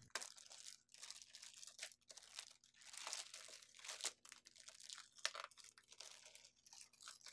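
Faint, irregular crinkling of a clear plastic bag being handled and pulled open to take out a printer's input tray.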